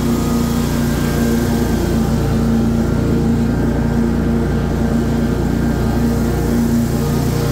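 Stand-on commercial lawn mower engine running steadily at a constant pitch while the mower travels across the lawn.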